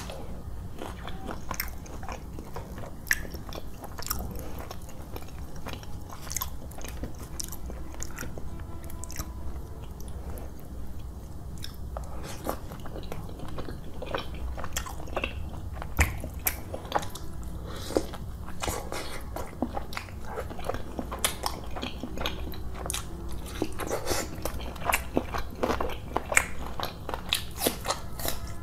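Close-miked eating sounds: crisp bites and crunching of raw green chili and raw red onion, with chewing of roti and chicken curry. The crunches come thickest near the end.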